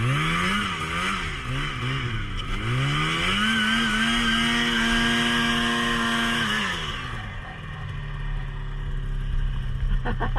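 Snowmobile engine revved in several quick blips, then held high for a few seconds and dropped back to a steady idle, as the sled sits buried in deep snow.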